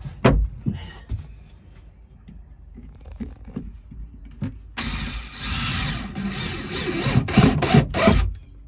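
A knock just after the start, then a cordless drill driving a screw into plywood for about three and a half seconds, breaking into a few short bursts near the end as the screw seats.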